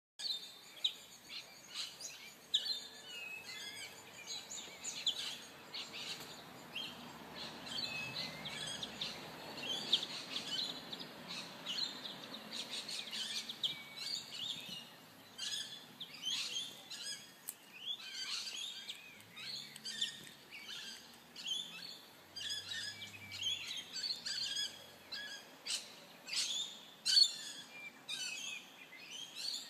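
Small birds chirping and calling over and over, a busy stream of short tweets with many sharp clicks mixed in.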